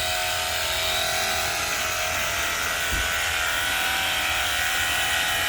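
Cordless battery-powered pressure washer running steadily, its electric pump motor whining under the hiss of the water spray. It is loud, but not as loud as a standard pressure washer.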